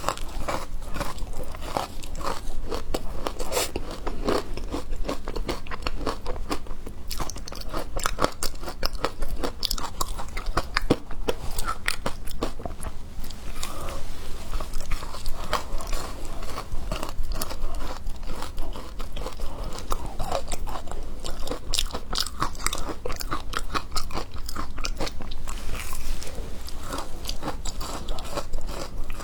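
A person biting and chewing hard frozen matcha ice, with a continuous run of irregular, crisp crunches.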